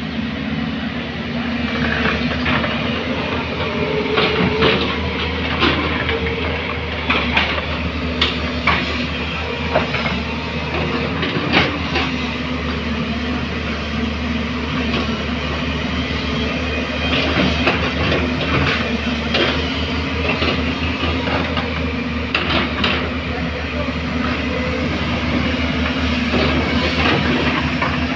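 JCB backhoe loader's diesel engine running steadily under load, with frequent short metallic clanks and knocks throughout.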